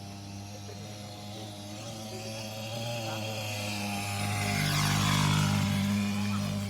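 Small two-stroke brush-cutter engine on a mini motocross bike running steadily, growing louder to a peak about five seconds in and then easing off a little.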